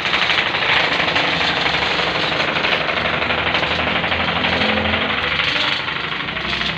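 Homemade carpet dust-beating machine running, with a rapid, steady mechanical knocking; it drops slightly in level about six seconds in.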